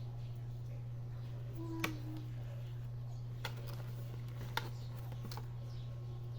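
A few sharp, scattered plastic clicks from a toy and its packaging being handled, over a steady low hum.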